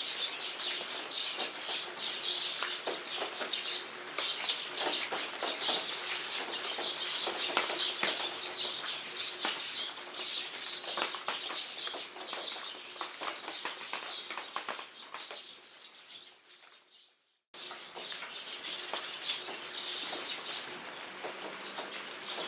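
Steady rain pattering with birds chirping through it. The sound fades out about three-quarters of the way through, drops to silence for a moment, then starts again abruptly.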